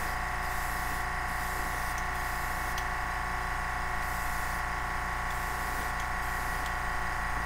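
Iwata HP-C gravity-feed airbrush spraying paint in short passes, a high hiss of air that starts and stops every second or so. A steady droning hum with several held tones runs underneath.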